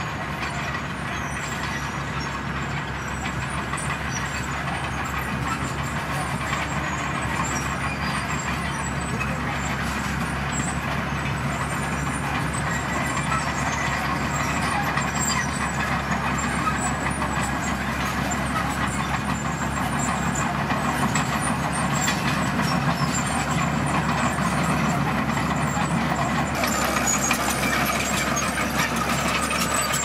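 Komatsu D41PX crawler bulldozer's diesel engine running steadily under load as it pushes a pile of red gravel, with the continuous clatter of its steel tracks.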